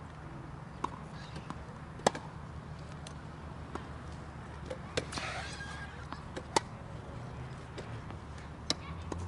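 Tennis rally: sharp pops of a racket striking the ball and of the ball bouncing, every second or two, the loudest about two seconds in and again past six and a half seconds, over a steady low rumble.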